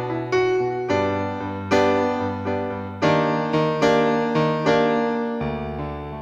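Slow keyboard music with a piano sound: chords struck about once a second and left to ring, growing quieter toward the end.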